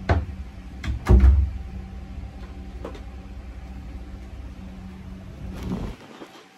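Two loud knocks about a second apart over a steady low hum. The hum swells briefly and then stops abruptly about six seconds in.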